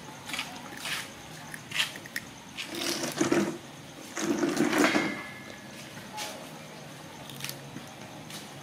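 Crunchy snack being bitten and chewed close to the microphone: irregular crisp crunches and clicks, the loudest stretches about three and four and a half seconds in.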